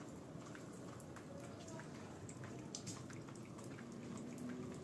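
Faint low background noise with scattered small clicks at irregular moments.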